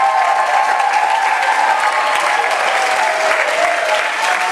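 Audience applauding steadily after a competing couple is announced, with some voices calling out over the clapping.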